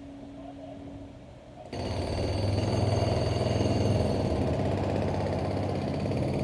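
Robotic descaling arm: a low machine hum, then about two seconds in its tool head starts working against the concrete with a loud, rapid, steady clatter.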